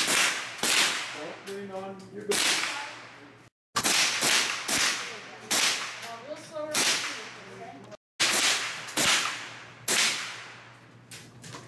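Rifle shots from several shooters firing at irregular intervals, about ten in all. Each sharp crack is followed by a ringing tail that fades over a second or so under the covered firing line.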